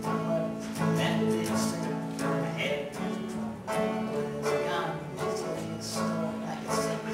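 Acoustic guitar and banjo playing a folk tune together, with a man singing long held notes over the picking.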